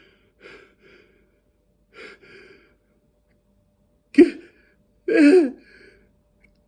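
A man gasping and breathing hard, with a few faint breathy gasps, then a sharp gasp and a short strained cry near the end.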